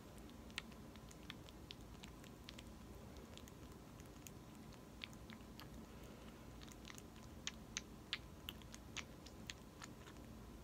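Baby marmoset suckling from a small feeding bottle: faint, scattered wet clicks and smacks of its mouth on the nipple, coming quicker in the second half.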